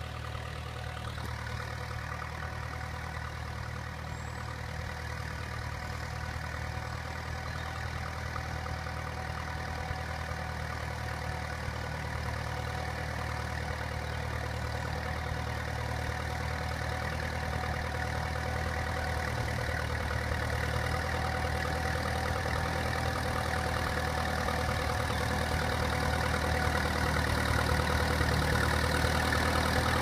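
Fordson E27N tractor engine running steadily while pulling a plough, growing gradually louder as the tractor comes closer.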